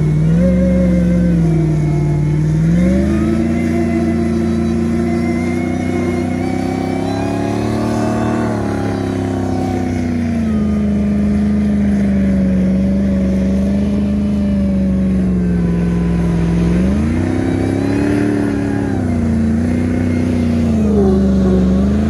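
Jeep Wrangler's supercharged Hemi V8 revving hard under load as it pulls a stuck box truck through deep snow on a recovery strap. The engine speed rises and falls several times, dipping about two seconds in, climbing around eight seconds, and surging again near the end.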